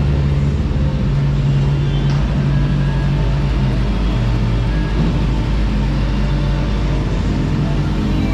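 Motorcycle engine running steadily while riding, over a steady rushing hiss; its pitch drops briefly about three to four seconds in, then picks back up.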